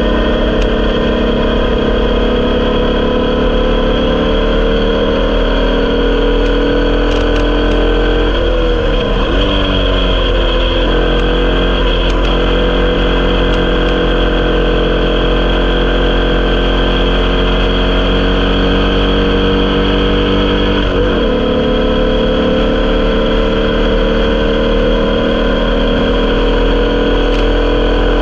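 Onboard sound of an Elfin Crusader Formula Vee's 1200cc air-cooled Volkswagen flat-four running hard at race pace. The engine note climbs slowly, drops and wavers about nine seconds in, dips briefly again a little after twenty seconds, then climbs steadily once more.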